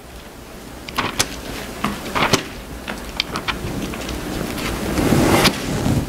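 Bible pages being turned and leafed through: a rustle of paper with several sharp page flicks, building up and loudest near the end.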